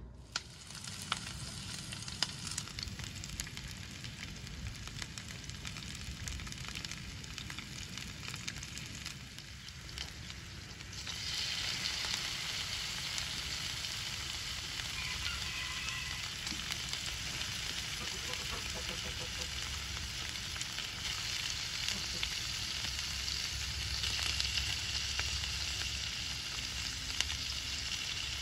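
Cubes of pork belly and sliced red onions sizzling in hot oil in a frying pan. The sizzle gets louder and brighter about eleven seconds in and stays steady after that.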